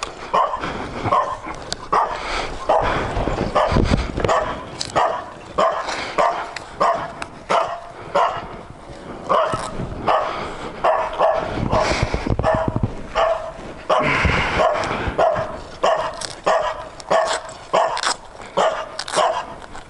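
A dog barking over and over in short, quick barks.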